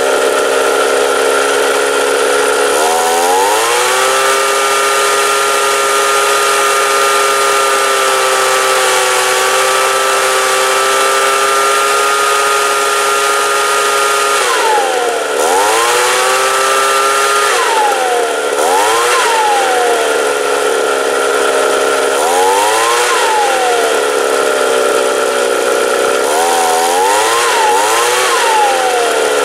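Ryobi two-stroke leaf blower engine being test-run after a carburetor rebuild and adjustment: it idles, revs up about three seconds in and holds at high speed for around eleven seconds, then drops back and is blipped up and down several times, settling back to idle each time.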